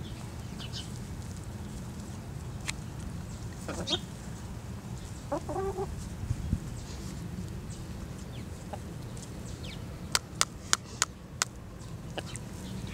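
A domestic hen giving two short clucks a few seconds in, over a steady low hum. Near the end comes a quick run of five sharp taps, the loudest sounds.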